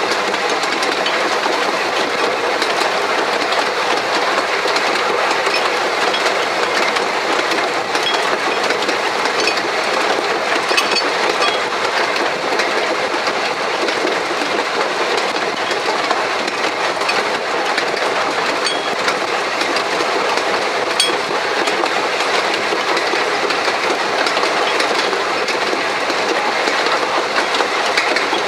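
1883 Hunslet narrow-gauge steam locomotive and its train on the move, heard from the footplate and tender: a steady running noise of wheels on rail with a clickety-clack rattle.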